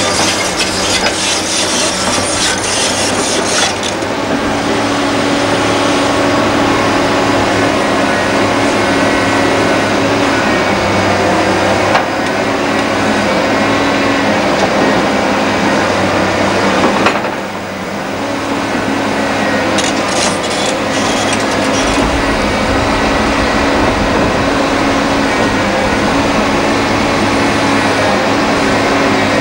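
Liebherr R962 Litronic hydraulic excavator running with a steady engine hum while its bucket scrapes and digs through stony soil. A deeper rumble joins about two-thirds of the way through.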